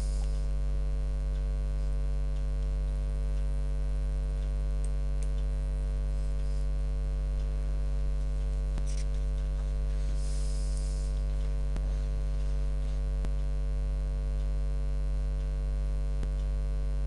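Steady electrical mains hum: a low drone with a stack of even overtones, unchanging throughout, with a few faint clicks.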